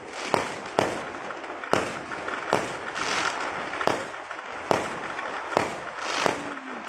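New Year fireworks going off in a barrage: sharp bangs roughly once a second with crackling in between.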